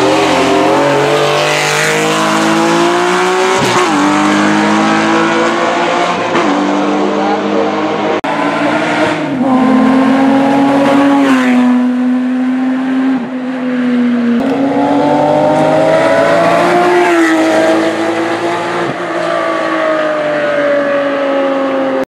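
Several racing cars at full throttle, one after another, including a classic Porsche 911 and a Porsche Cayman. Each engine rises in pitch as it revs up and drops at each upshift.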